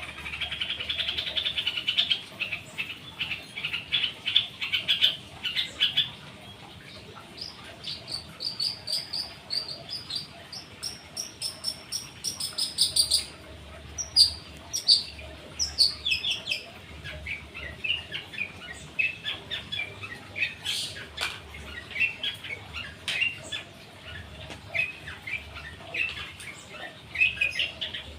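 Long-tailed shrike (cendet) singing fast, unbroken strings of chirping notes, with other birds calling back. A lower run of rapid notes opens it, a higher, shriller run follows in the middle, then varied chirps.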